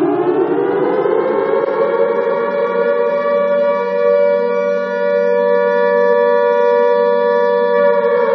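Alarm siren wailing: its pitch rises over the first two to three seconds, then holds steady until near the end.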